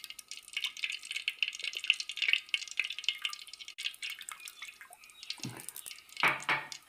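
Cooking oil poured in a thin stream into a clay cooking pot: a fine, crackly trickle of many small ticks. Two dull knocks near the end.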